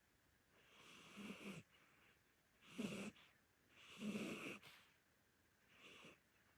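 An elderly Korean shorthair cat snoring softly in its sleep: four raspy breaths about a second and a half apart, each a low rattle with a hiss.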